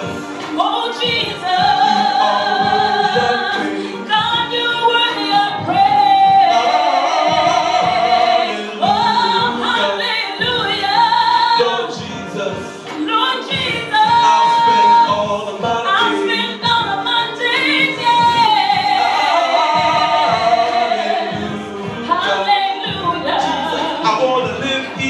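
Live gospel singing into microphones over musical accompaniment: long held notes that waver in pitch and slide from note to note.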